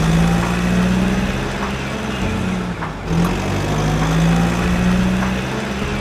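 Toy garbage truck's electronic engine sound effect: a steady truck-engine rumble at idle that shifts slightly in pitch now and then.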